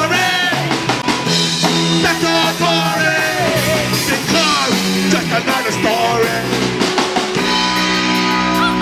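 Punk rock music: a band with a drum kit playing a song, with some singing over it.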